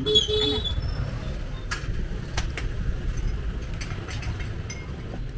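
Steady low rumble of street traffic, with a few sharp clinks of dishes about two seconds in.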